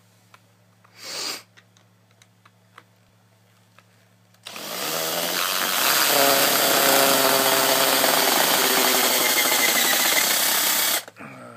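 A handheld power tool starts about four and a half seconds in, its whine rising as it spins up, then runs steadily for about six seconds before cutting off suddenly. A brief scrape comes about a second in.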